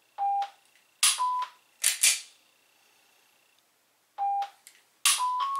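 Shot timer set to a 1-second par for dry-fire pistol drills: a short start beep, then a second later a sharp click with a slightly higher par beep, then two quick clicks from the pistol. The same sequence starts again about four seconds after the first beep: start beep, click and par beep.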